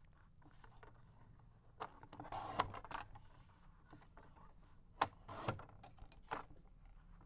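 Paper strip being slid and lined up on a Fiskars paper trimmer, with soft rustling and a few sharp clicks and taps from the trimmer and the card.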